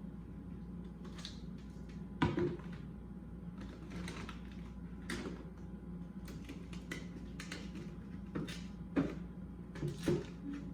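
Light clicks and knocks of household things being handled, with sharper knocks about two, five, nine and ten seconds in, over a steady low hum.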